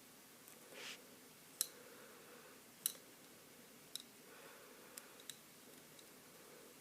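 Faint, scattered clicks and taps of hard plastic as a small plastic pony figure and its dragonfly wings are handled, with a soft rustle about a second in.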